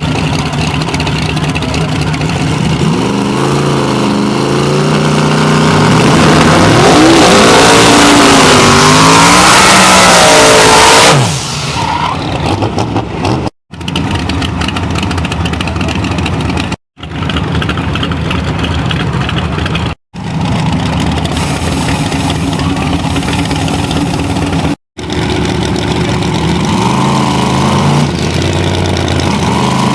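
No-prep drag cars' engines under full throttle, loud, the pitch climbing and wavering for several seconds before cutting off abruptly. Then a run of short clips of engines running and revving.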